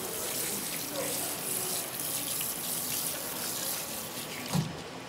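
Tap water running from a hose onto mackerel fillets as they are rinsed in a plastic basket. The water cuts off about four and a half seconds in, followed by a single thump.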